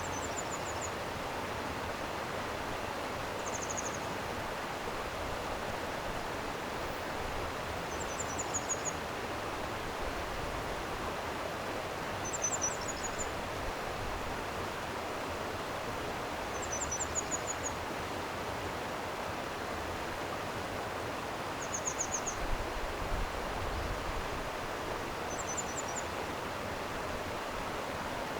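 Steady rush of a flowing stream, with a small bird repeating a short, high phrase of a few rapid notes about every four seconds.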